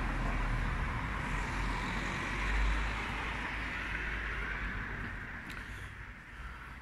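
A road vehicle driving past. Its tyre and engine noise swells about two and a half seconds in, then fades away.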